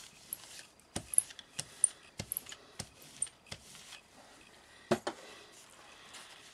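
Small rubber hand roller (brayer) rolled back and forth over tissue paper laid on card, giving a quick series of light clicks about two a second, then one louder knock about five seconds in.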